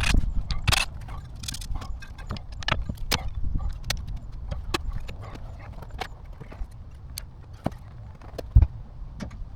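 Irregular clicks, taps and knocks of hand tools and metal parts during work on a car, a few sharp strikes every second or two, with a heavier thump near the end.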